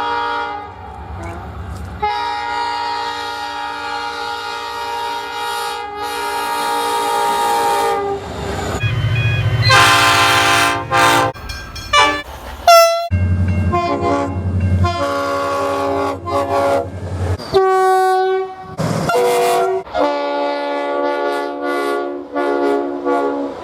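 A string of train horn blasts from different trains, edited back to back with abrupt changes between them. Most are several notes sounding together as a chord, held for a second or more, a few short toots bend downward in pitch, and a low rumble sits under some of them.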